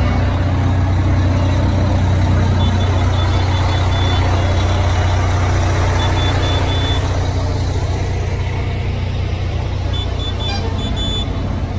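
Fire engine's engine running with a deep, steady drone as the truck rolls slowly past close by, easing off after about eight seconds as it moves on. A faint high beeping comes and goes several times.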